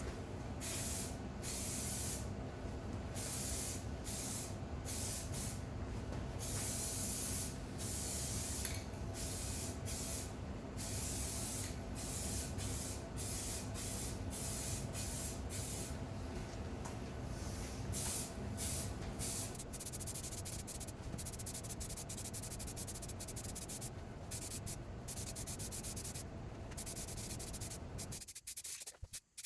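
Aerosol can of spray primer hissing in repeated bursts, some long passes and some short. In the second half the bursts come shorter and quicker.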